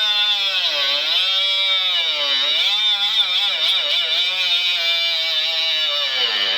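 Handheld power grinder running continuously as it works a wheel bearing race in a hub. Its motor whine wavers and dips in pitch several times as it is pressed into the metal.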